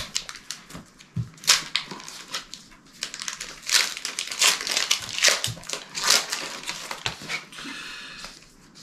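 Foil Pokémon booster pack wrappers crinkling and crackling as they are handled, in irregular bursts, busiest from about a second and a half in until shortly before the end.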